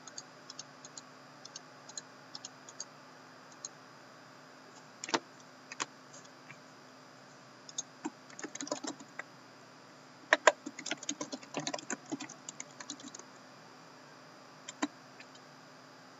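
Laptop keyboard typing: scattered single keystrokes, with a busier run of taps about ten to thirteen seconds in.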